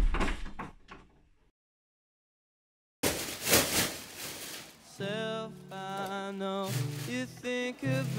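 A door slams shut and its rattle dies away within about a second. Dead silence follows, then music starts about three seconds in, with a melody carrying from about five seconds.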